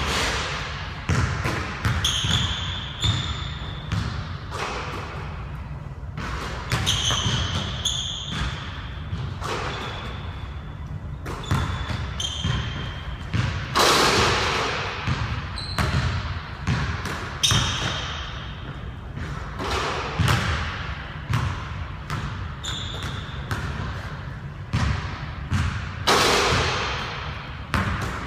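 Basketballs bouncing and thumping on a hardwood gym floor during shooting practice, with short high sneaker squeaks, all echoing around a large gym.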